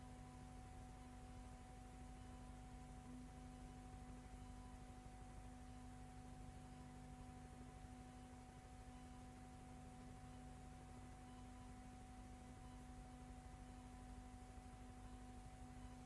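Near silence: a faint, steady electrical hum with a few unchanging tones, and no other sound.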